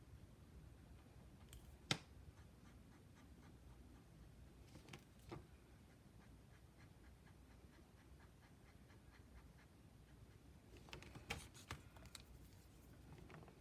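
Near silence with a few small clicks and taps of brush pens being handled: a sharp single click about two seconds in, two faint ones around five seconds, and a quick cluster of clicks near the end as the pens are swapped.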